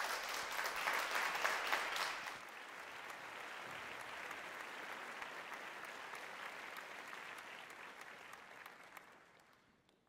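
Audience applauding, the clapping heaviest for the first couple of seconds, then settling to steadier, quieter applause that fades out near the end.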